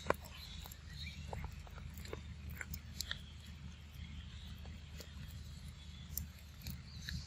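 A macaque biting and chewing a piece of juicy yellow fruit: irregular wet clicks and smacks over a steady low hum.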